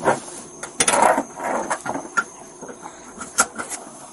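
Clothing rubbing and brushing against a body-worn camera, with a few knocks and one sharp click about three and a half seconds in.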